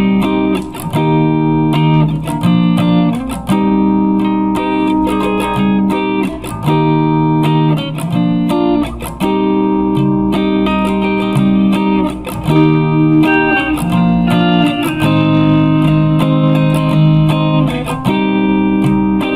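Guitar music: a plucked guitar playing a continuous melodic passage of changing chords and single notes, each note starting with a crisp pluck.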